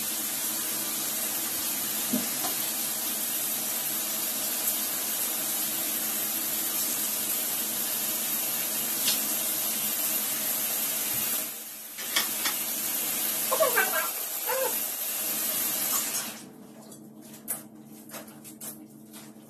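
Water running into a bathtub, a steady hiss that dips once briefly and then cuts off near the end. A few short clicks and brief voices follow.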